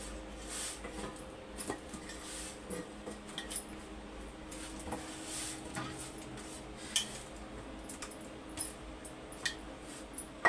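Bhatura dough being kneaded by hand in a steel plate: the plate scrapes and clinks against the floor and the hands, with scattered small clicks, over a faint steady hum.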